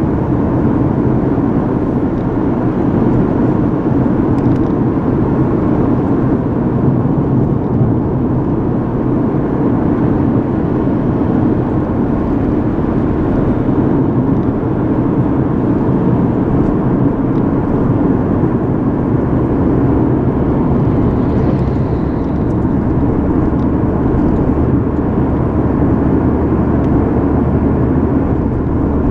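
Steady road noise in a moving car's cabin: tyres and engine rumbling evenly, mostly low in pitch.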